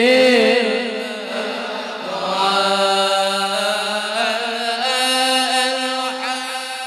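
A group of men chanting an Arabic devotional dhikr together. The first notes waver and are ornamented, then from about two seconds in the voices hold long, steady notes in unison.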